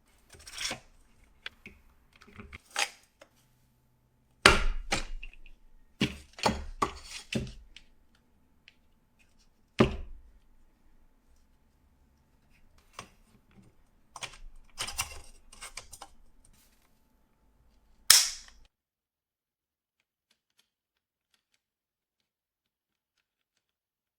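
Hard clicks, knocks and rattles of parts being handled and fitted together, as in putting together a PC-case stand, with several sharp, loud snaps among them.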